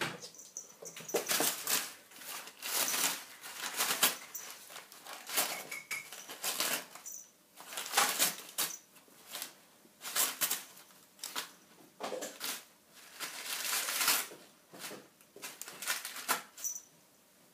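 Brown paper packing wrap crinkling and rustling in irregular bursts as a kitten pounces on it and burrows its head into it.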